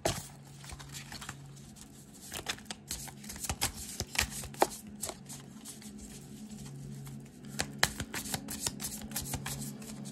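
Thoth tarot deck being shuffled by hand: quick, irregular snaps and clicks of the card edges, over a faint steady low hum.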